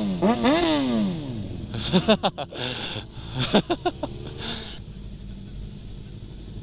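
Sport motorcycle engines blipped up and down several times at low speed, with a few more short revs and clatters in the middle, then settling to a low, steady running sound.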